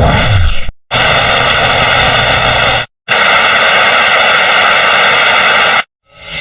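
Editing sound effects: the tail of a falling whoosh, then a harsh, steady noise played twice, about two and three seconds long with a brief break between, each cutting off abruptly.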